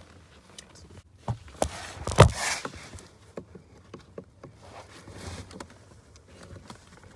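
Scattered plastic clicks and knocks with brief rustling as hands work the clips and housing of a 2010 Mercedes-Benz C300's cabin air filter. The loudest is a knock about two seconds in, followed by a short scrape.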